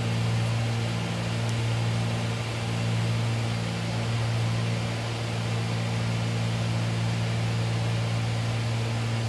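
Cessna 310's twin piston engines and propellers running steadily in flight, heard inside the cabin as a constant low drone with a slow, even pulsing in it.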